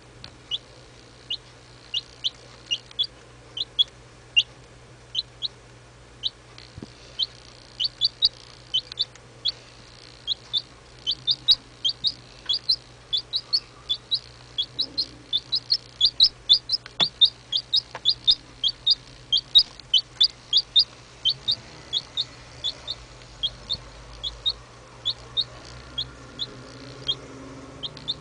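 Domestic chicken chick, a few weeks old, peeping: a long run of short, high peeps, a few a second, coming faster and louder through the middle.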